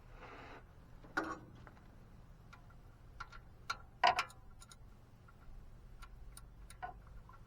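Irregular light clicks and knocks of hand tools working on metal, with the loudest knock about four seconds in.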